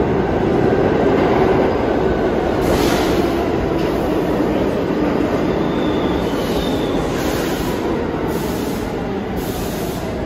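New York City subway train running along the track: a loud, steady rumble of steel wheels on rail with a faint wheel squeal, the noise slowly easing toward the end.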